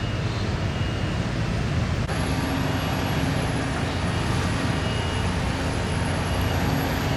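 Road traffic: motor vehicle engines and tyre noise in a steady low rumble.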